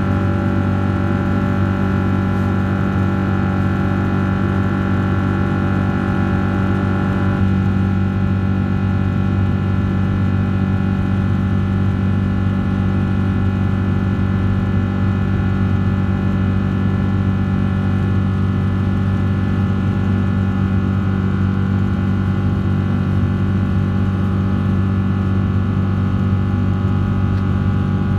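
Boeing 777-300 jet engines heard from inside the passenger cabin in flight after takeoff: a loud, steady drone with several held tones over it.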